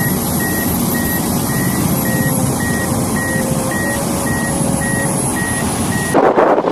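Heavy machine's backup alarm beeping about twice a second over a running diesel engine. About six seconds in it cuts off suddenly and a louder rushing noise takes over.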